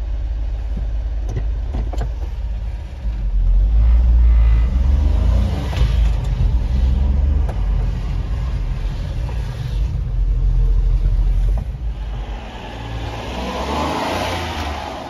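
A 1992 Honda Acty mini truck's small three-cylinder engine running as the truck is driven, with a deep steady rumble that grows louder as it speeds up about three seconds in and again around ten seconds.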